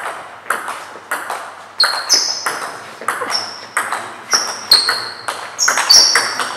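Table tennis rally: the plastic ball clicking sharply off the rubber bats and the Joola table, about three hits a second, each hit with a short high ping.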